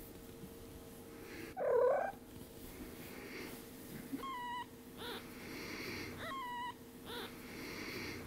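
Week-old kitten mewing: one louder, lower, wavering cry about two seconds in, then two short, thin, high-pitched mews.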